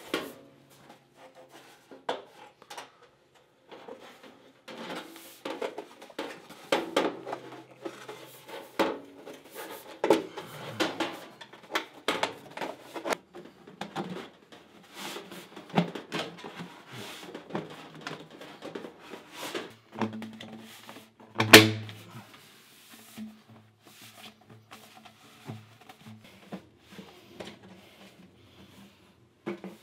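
4-inch sheet-metal dryer vent pipe being snapped together along its seam by hand: irregular clicks, pops and metallic rattles, with one loud snap about two-thirds of the way through.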